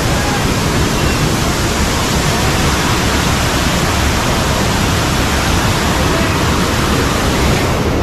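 Waterfall's falling water rushing, a loud steady wash of noise across all pitches.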